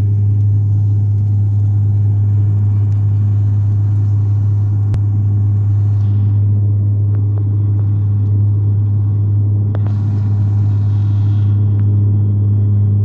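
Cabin noise of a high-wing turboprop airliner in flight: the engines and propellers make a loud, steady low drone under a hiss of airflow. The hiss fades about six seconds in and returns briefly around ten seconds.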